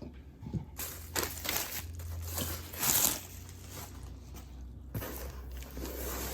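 Packaging being handled and rummaged through in a cardboard box: irregular rustling and crinkling, loudest about halfway through, easing off about two-thirds of the way in.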